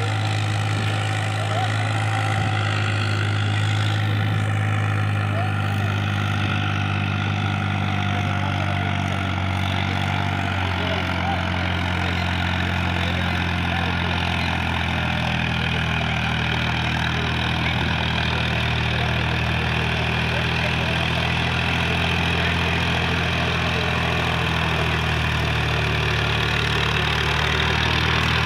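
Massey Ferguson 8055 Magnatrak tractor's diesel engine running steadily under load while it pulls a loaded trailer, its note holding almost the same pitch with only slight shifts.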